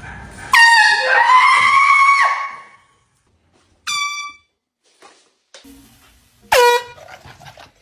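Air horn blasted three times: first a long blast of nearly two seconds, then two short blasts a couple of seconds apart, each starting suddenly at full loudness.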